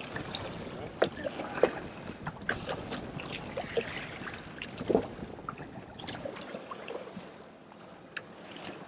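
Lake water lapping and sloshing against a fishing boat's hull, with scattered clicks and knocks from a fish being worked out of a landing net on the deck.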